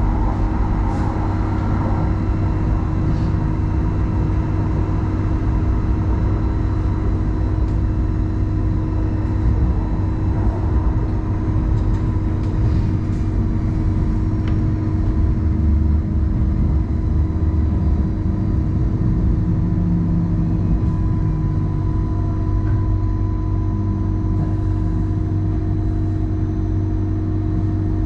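Hong Kong Light Rail Phase I train running, heard from on board: a steady low rumble of wheels on track with a constant electrical hum from the traction equipment.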